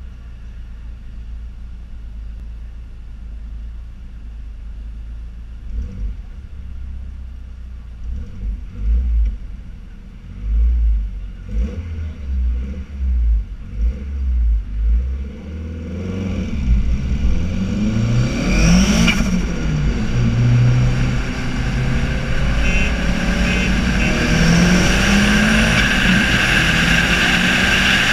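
Turbocharged SR20DET four-cylinder of a Nissan 200SX S14a rumbling at low speed with uneven low thumps, then a little over halfway through accelerating hard, its note rising and falling before holding loud and steady at high revs with wind rushing past.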